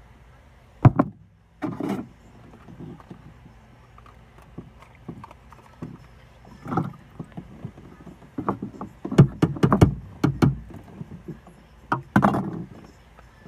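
Irregular knocks, clicks and rustling close to the microphone, bunched into a few clusters, with the loudest knocks about a second in and around the last few seconds.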